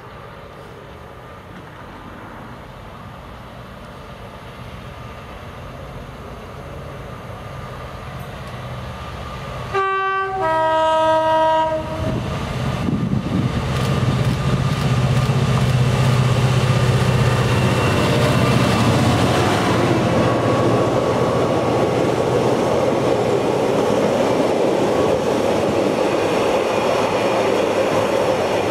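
A Class 66 diesel locomotive's two-stroke V12 engine drones louder as it approaches. About ten seconds in it sounds its two-tone horn, a short high note then a longer low note. The loco passes close with a loud low engine drone, followed by the steady rumble and clickety-clack of loaded container wagons.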